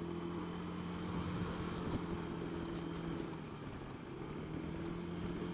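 Honda Dio scooter's small engine running at a steady low note while riding, over road rumble. The note drops away briefly a little past the middle, then returns.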